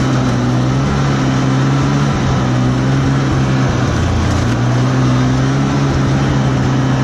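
Snowmobile engine running steadily at travelling speed, heard from the rider's seat, with a brief dip in revs about four seconds in.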